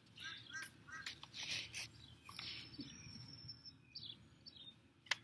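Birds chirping in the background, a few short chirps in the first second and a thin held whistle around the middle, while the pages of a paperback picture book rustle as they are turned. A sharp click near the end.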